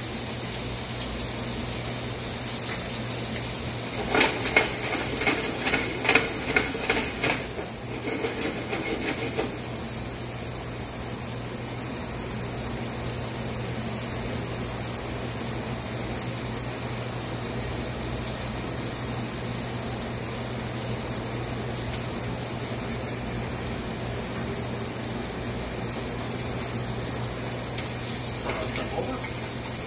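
Shrimp searing in hot olive oil in a frying pan: a steady sizzle, with a louder stretch of rapid crackling for about five seconds starting around four seconds in. The sizzle means the pan is hot enough to sear the shrimp rather than let them boil in their own juices.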